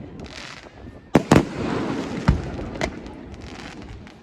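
Aerial fireworks going off: a short hiss, then two sharp loud bangs a little over a second in, followed by crackling and two softer bangs.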